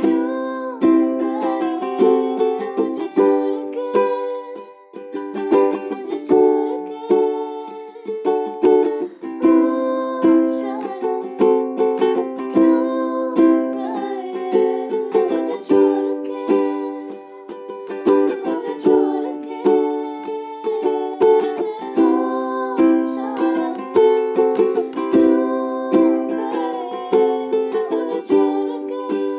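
Ukulele strummed in steady rhythmic chords accompanying a woman singing a slow melody, with a brief lull about five seconds in.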